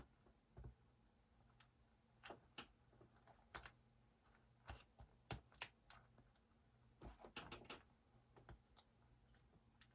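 Faint, irregular clicks and taps of small laptop parts being handled and a connector being fitted back onto the motherboard, over a faint low hum.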